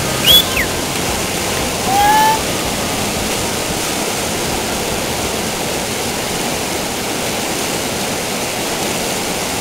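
Steady rushing roar of whitewater pouring through the hole of a rapid where a freestyle kayak is surfing. Two brief high-pitched sounds stand out: a falling one near the start and a short rising one about two seconds in.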